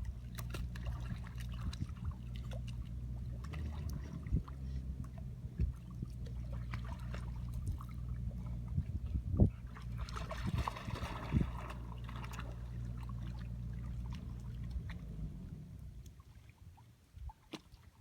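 A steady low engine hum that fades out about fifteen seconds in, with scattered splashes and water noise from the puppy, strongest around ten to eleven seconds in.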